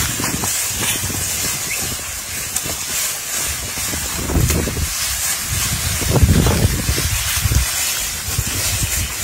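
Wind buffeting the microphone in gusts over a steady high hiss, the low rumble swelling about halfway through and again near the end.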